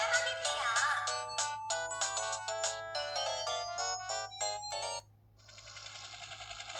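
A Curitel PH-L4000V phone's speaker plays a ringtone melody of quick electronic notes, which stops abruptly about five seconds in. After a short pause the next tone starts quietly and swells in loudness.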